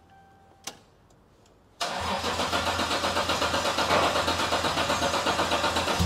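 Toyota Supra Mk4's freshly forged 2JZ-GTE twin-turbo straight-six being cranked by its starter on its first start after the rebuild. A single click, then about two seconds in the cranking starts suddenly and goes on as an even rapid pulsing.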